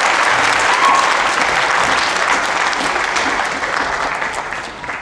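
Audience applauding, a dense patter of many hands that slowly dies away over the last second or two.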